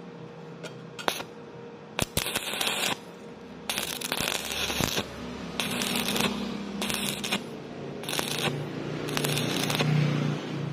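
Stick (arc) welding on thin steel tube: a sharp click or two as the electrode is struck, then the arc crackles and sizzles in about six short bursts with brief pauses between them. The weld is laid in stop-start stitches across a gap in thin metal.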